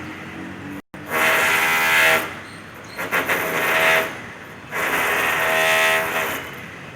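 Electric rotary hammer running in three bursts of about one to one and a half seconds each, its pitched motor whine over the hammering, dropping back between bursts.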